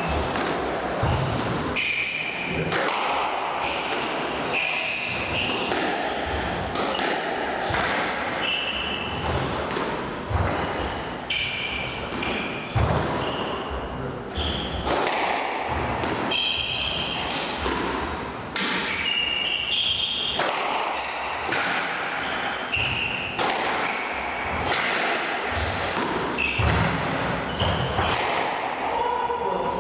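Squash rally: the ball repeatedly smacks off the rackets and the court walls, dozens of sharp hits, mixed with short high squeaks of players' shoes on the wooden floor.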